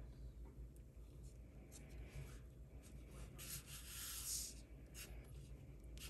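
Faint rubbing and scratching of fingers handling a small plastic snow globe, strongest about four seconds in, over quiet room tone.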